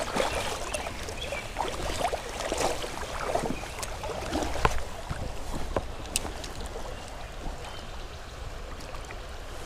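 Shallow creek current flowing and gurgling around the wading angler, with a few sharp clicks from the spinning reel during a cast and retrieve.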